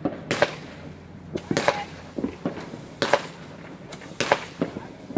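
Aerial fireworks going off: five sharp bangs spaced about a second and a half apart, with smaller pops and crackles between them.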